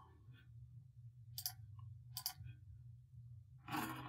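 Computer mouse clicking: three short clicks in the first couple of seconds, then a brief rustling sound near the end, over a low steady hum.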